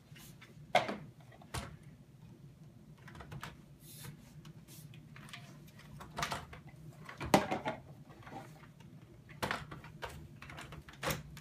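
Plastic parts of a Shark vacuum being handled and fitted together: scattered sharp clicks and knocks at uneven intervals, the loudest a little over seven seconds in.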